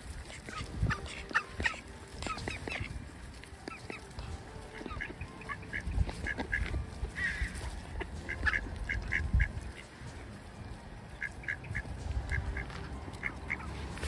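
Mallard ducks quacking in quick runs of short calls, over and over, with some low rumbling underneath.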